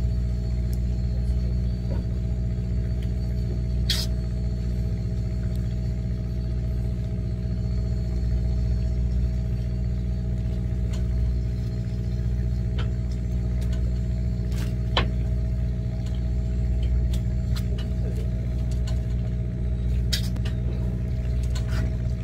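A fishing boat's engine running steadily, a low even drone. A few sharp clicks sound now and then over it.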